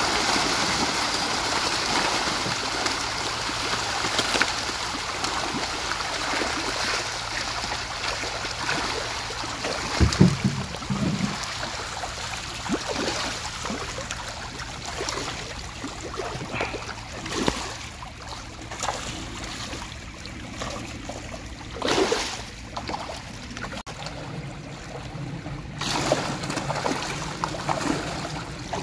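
Running water: a steady rush that eases after the first ten seconds. A dull double thump comes about ten seconds in, and a few short bursts follow later.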